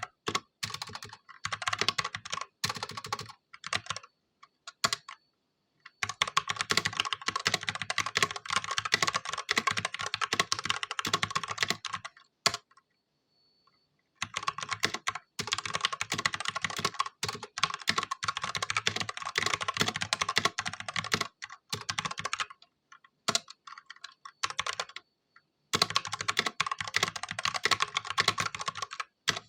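Ajazz K870T mechanical keyboard with stock, unmodded Huano red linear switches being typed on: fast runs of keystrokes broken by a couple of short pauses of about two seconds, with a few scattered keypresses in the first few seconds.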